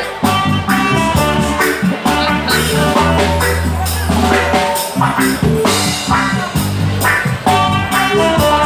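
Roots reggae band playing an instrumental passage: bass guitar, drum kit and guitar, with a steady beat.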